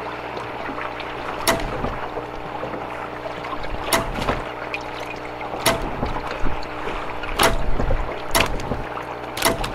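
Live walleyes splashing and flopping as they are grabbed from a boat's live well and dropped into a landing net, about six sharp splashes and knocks over a steady hum.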